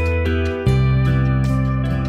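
Instrumental background music with held notes; the chord changes about two-thirds of a second in.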